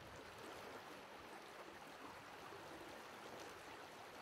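Faint, steady rush of river water flowing around a wading angler.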